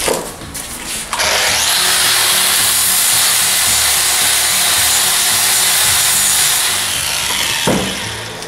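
Angle grinder grinding down the steel outer race of an old ball bearing clamped in a vise: a loud, steady, hissing grind that starts abruptly about a second in and winds down near the end, with handling clunks before it.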